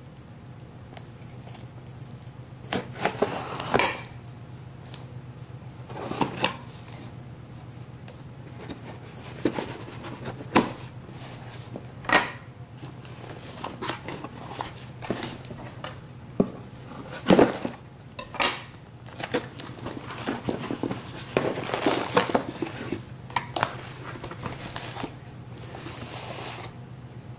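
A cardboard shipping mailer being torn open by hand and handled: irregular rustling, tearing and scraping of cardboard with sharp snaps and knocks scattered through, over a steady low hum.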